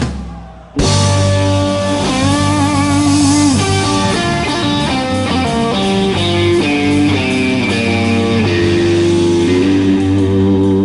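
Live electric blues band: after a stop-time drum hit, the full band comes back in just under a second in and an electric guitar plays a lead line of single notes, with bent notes and vibrato, over bass and drums.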